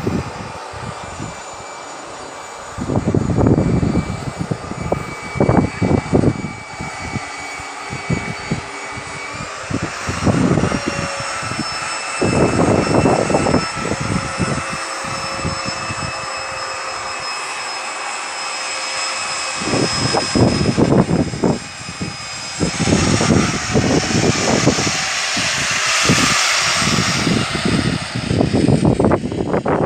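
Heavy 2 kW Rebir electric drill running with a steady motor whine while boring large-diameter holes into a timber beam. Louder grinding bursts of the bit cutting come and go, around 3 to 6 seconds in, again around 10 to 14 seconds, and near-continuously through the last third, and the whine's pitch shifts slightly under load.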